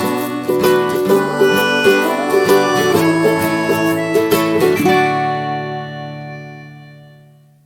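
Music played on a plucked string instrument: a run of picked notes that ends on a final chord ringing out and fading away over the last few seconds.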